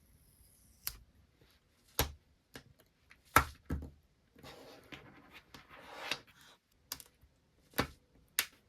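Packaging and goods handled on a table: a series of sharp taps and clicks, with a few seconds of crinkly rustling in the middle, as parcels of merchandise are unpacked.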